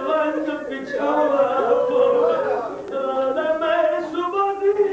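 A man's voice reciting verse in a melodic chant into a microphone, with long held notes that slide up and down.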